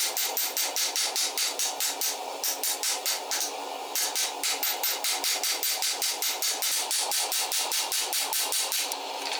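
Hammer blows forging hot leaf-spring steel into a cleaver blank, struck rapidly at about four a second, with a short break about three and a half seconds in, stopping near the end. A steady rushing noise runs underneath.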